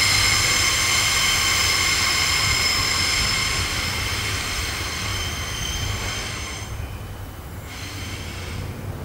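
Freight wagons' wheels squealing on a tight curve, several high steady tones over a low rolling rumble, with long PQIY wagons the main source of the squeal. The sound fades away, the squeal mostly dying out about seven seconds in.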